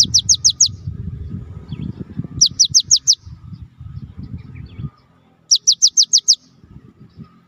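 Cinereous tit (gelatik batu) singing: three bursts of five or six quick, sharply falling whistles, about two and a half seconds apart. A low rumble runs under the first two bursts and dies away about five seconds in.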